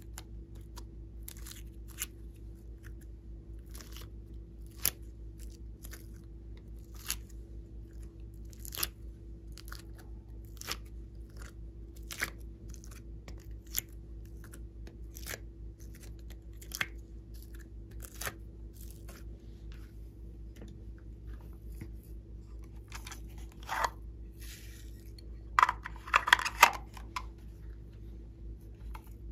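Pieces of soft clay and slime being pulled apart and pressed into a tray of slime: a short sticky click every second or two, with a dense burst of crackling a little before the end. A steady low hum runs underneath.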